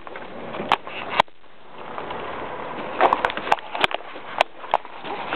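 A small child's footsteps crunching through dry fallen leaves: irregular crackles and sharp snaps, a couple near the start, then a quieter stretch, then a denser run in the second half.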